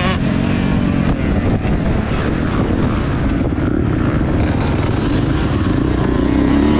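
Motocross dirt bike engine running hard at speed, heard from the rider's helmet camera with heavy wind noise over it; the revs waver as the rider works the throttle.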